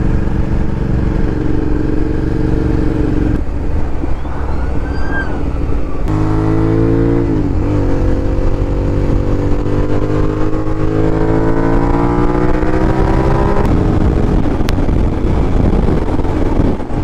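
Suzuki SV650S's 645 cc V-twin engine on the move, running steadily, then dropping off about three seconds in; from about six seconds it pulls again, its pitch rising slowly as the bike gathers speed, until it drops off once more near fourteen seconds. A steady rush of wind and road noise runs beneath it.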